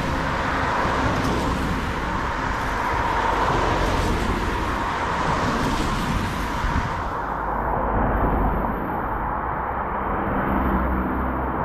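Steady outdoor noise: a constant hiss over a low rumble, with no separate events. The hiss turns duller about seven seconds in and brightens again near the end.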